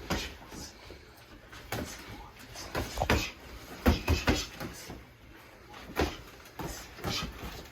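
Boxing sparring: gloved punches and footwork landing as irregular sharp thuds, several coming in quick clusters of two or three.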